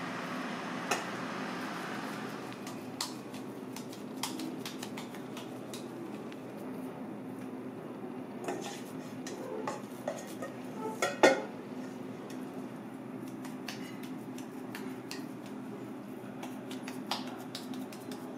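Scattered clinks and knocks of a stainless steel mixing bowl being handled and scraped by hand as fish paste is scooped out, with a cluster of louder knocks about eleven seconds in. A steady low hum runs underneath.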